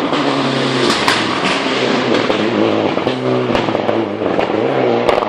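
Rally car engine running hard at close range, its pitch climbing and dropping several times through gear changes and lifts off the throttle, with a few sharp cracks.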